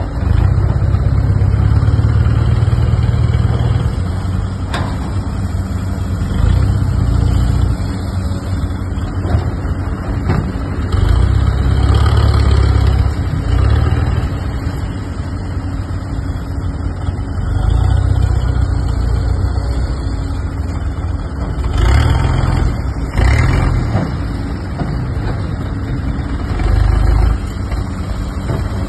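Engine of a heavy earthmoving machine running, revving up in surges every few seconds, about six times, as it works under load.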